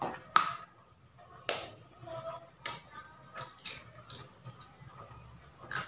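A hen's egg being knocked and cracked open over a plastic bowl: a handful of sharp taps spread out, the first the loudest, with fainter ticks between.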